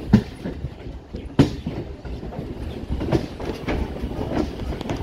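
Wheels of a suburban local train clattering over rail joints and points in a station yard: a steady rumble with an uneven run of sharp clacks, the two loudest in the first second and a half.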